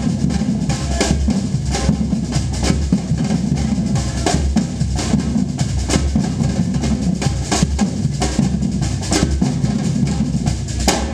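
Samba-style percussion ensemble playing a steady, driving groove: deep bass drums under rapid snare-drum hits.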